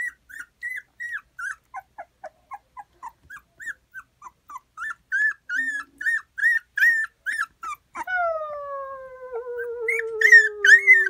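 Puppy crying in short, high, rising-and-falling squeals, about three a second. About eight seconds in, a drawn-out howl-like wail starts and slowly falls in pitch for about three seconds, with squeals still going over it.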